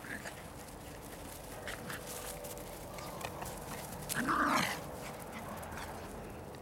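Miniature pinschers playing and chasing one another. About four seconds in, one gives a short vocal sound as two of them tussle over a toy, the loudest moment.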